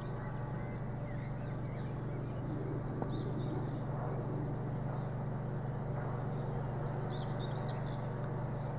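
Woodworking workshop machinery running with a steady low hum. Birds chirp briefly twice over it.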